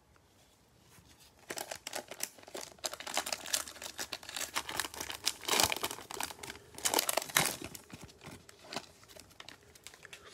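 Plastic wrapper of a trading-card fat pack being torn open and crinkled by gloved hands. The crackling starts about a second and a half in, is loudest near the middle, and thins out toward the end.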